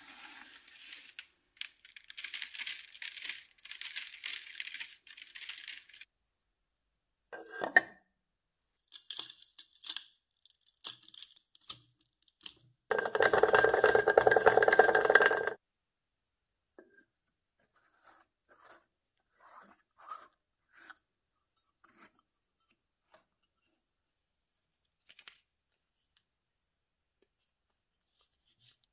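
A hand scoops and rakes dry sand in a plastic tub, then sand is poured through a plastic funnel into the brass oil can for about two and a half seconds, the loudest sound, with a faint ring from the can. Near the end come faint crackles of masking tape being torn and pressed on.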